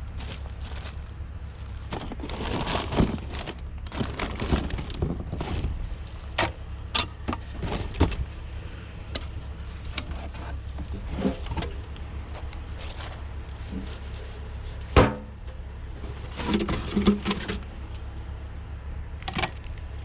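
Scattered knocks, clatter and rustling of scrap items being picked through and handled in a junk pile, with one sharp knock about 15 seconds in, over a steady low rumble.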